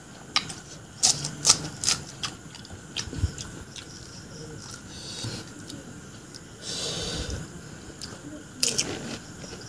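Crisp pani puri shells being cracked open and crunched while eating: a quick run of sharp cracks a second or two in, a brief hiss near the middle, and more crunching near the end.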